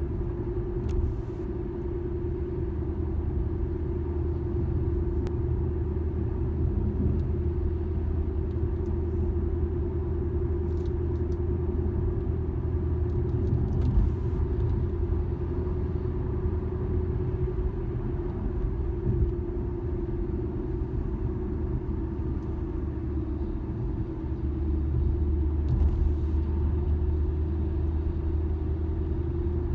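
Steady hum from a 2013 Infiniti G37S coupe while driving, a held tone over low road rumble. The owner suspects a worn wheel bearing, not the tires a dealer technician blamed.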